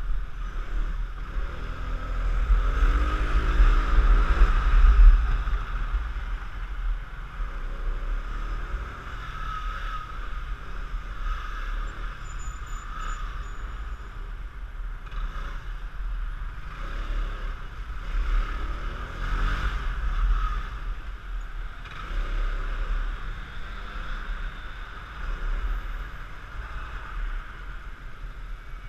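Piaggio X9 scooter's engine under way in stop-and-go riding, revving up and easing off several times over a steady low rumble. It is loudest a few seconds in.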